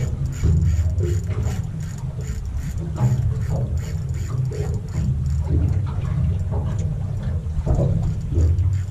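Wind buffeting the microphone in a low, uneven rumble.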